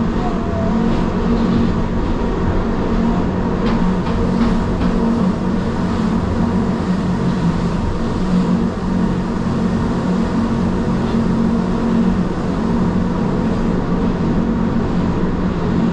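Gornergrat Bahn electric rack-railway train running downhill, heard from inside the passenger car: a steady rumble of running gear with a constant hum. A few light clicks sound about four seconds in.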